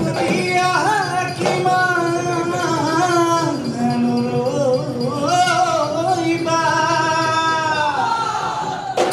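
Male voices singing a Bihu song in long held notes that bend and glide, over dhol drums. Sharp percussion strokes come in near the end.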